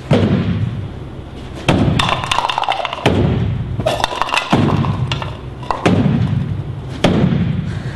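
Hands thumping the sides of a smoke-filled cardboard-box vortex cannon, about seven sharp thumps at uneven intervals, each firing a vortex ring of air. Polystyrene cups are knocked over and clatter about halfway through.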